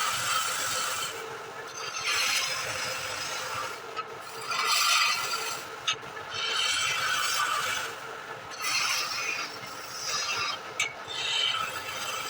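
Wood lathe running with a steady hum while a tool scrapes the spinning wood in repeated passes, each a second or two long, with a few sharp clicks between them.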